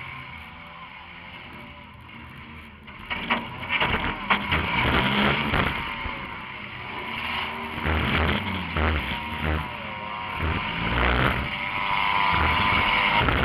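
Compact demolition derby car's engine running, heard from inside the stripped cabin. It is quieter at first, then gets louder from about three seconds in, with repeated knocks and rattles.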